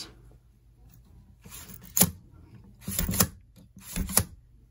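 Plastic K'nex toy gun parts clacking as hands work its mechanism: a sharp click about two seconds in, then a short run of clacks about a second later and a pair of clacks near the end.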